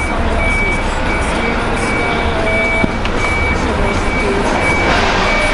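Reversing alarm beeping steadily at about two beeps a second, over the low rumble of an idling truck engine.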